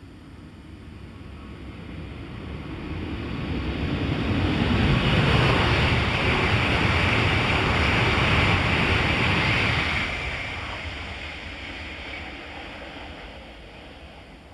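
E2-series Shinkansen running through the station at about 215 km/h without stopping: a rushing noise of wheels on rail and air. It swells over the first five seconds or so, holds loud for about five seconds while the train passes, then fades away over the last few seconds.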